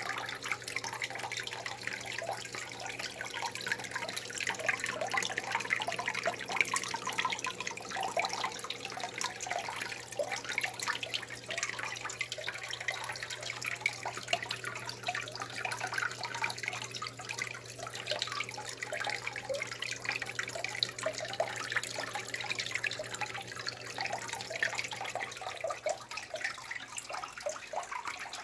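Aquarium water bubbling and trickling in a goldfish tank: a dense, even crackle of small splashes over a steady low hum.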